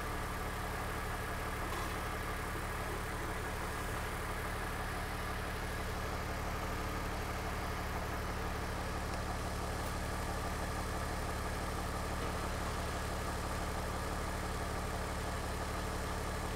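BMW E39 5 Series engine idling steadily, warmed up, with the automatic transmission in park.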